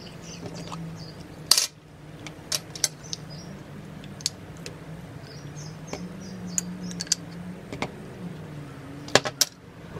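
Metal spoon clinking against a jar of red sauce as sauce is scooped out: about a dozen sharp, irregular clinks, the loudest about a second and a half in. A low steady hum runs underneath.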